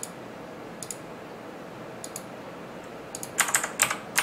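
Computer keyboard and mouse clicking. There are single clicks spaced about a second apart, then a quicker, louder run of keystrokes near the end.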